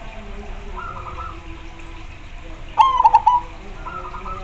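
Zebra dove (perkutut) song: one loud burst of quick, staccato cooing notes about three seconds in, with fainter coo runs from other zebra doves about a second in and again near the end.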